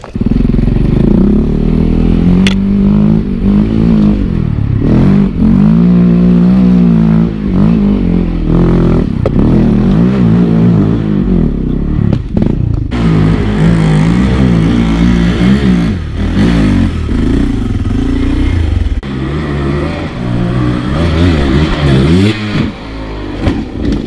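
Dirt bike engine running loud, its pitch rising and falling again and again as the throttle is worked on a climb through loose forest ground. There is one sharp click about two and a half seconds in.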